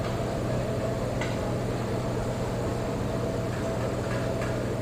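A steady mechanical hum with a faint click about a second in and another near the end.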